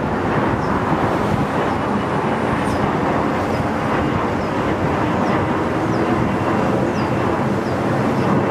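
Twin-engine jet airliner climbing out overhead just after takeoff: a steady jet-engine roar with a faint high whine.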